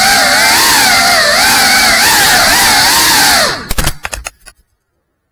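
GEPRC Cinelog 35 cinewhoop's motors and ducted propellers whining, the pitch rising and falling with the throttle. About three and a half seconds in, the whine breaks off into a few quick knocks as the drone crashes, then the sound cuts off.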